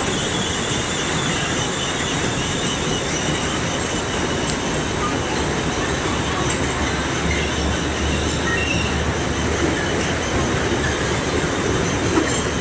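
Children's fairground carousel of toy cars and motorbikes turning, its running machinery and track making a steady mechanical noise.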